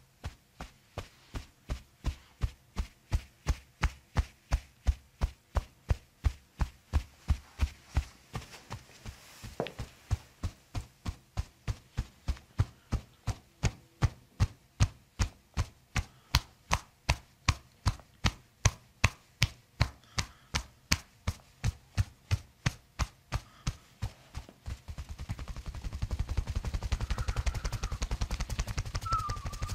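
Steady rhythmic tapping, about three sharp knocks a second, which turns into a fast continuous rattle about 25 seconds in.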